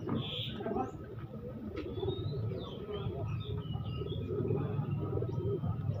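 Domestic pigeons cooing in a continuous low murmur, with short high chirps from small birds scattered throughout.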